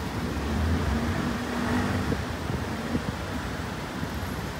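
Street traffic noise, a steady hum of road vehicles, with a low engine drone for roughly the first two seconds.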